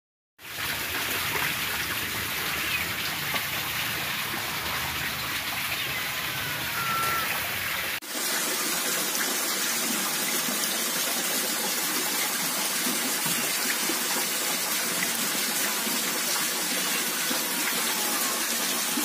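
Steady rushing and splashing water in a tub and a basket of red tilapia fingerlings, as a hand scoops and stirs the fish. The sound changes abruptly about eight seconds in, losing its low rumble.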